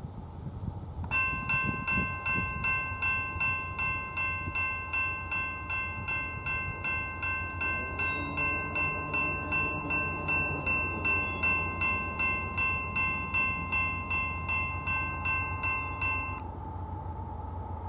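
Railroad grade-crossing warning bell ringing at about two strokes a second. It starts about a second in and falls silent about 16 s in.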